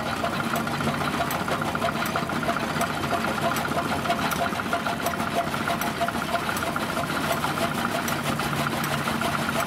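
Old belt-driven chaff cutter running steadily with a rhythmic clatter as straw is fed into it, with the engine that drives its belt running underneath.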